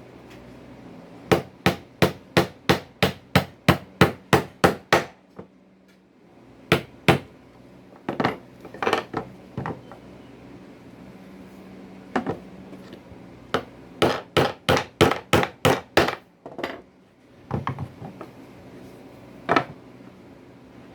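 A hammer striking wood in quick runs of blows, about three a second, with short pauses between the runs and a few single strikes.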